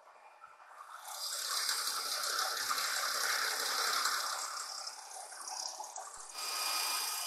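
Metal planer mill roughing a steel die with an end mill: a steady hissing cutting noise with machine mechanism sounds. It builds about a second in, eases near six seconds and swells again briefly near the end.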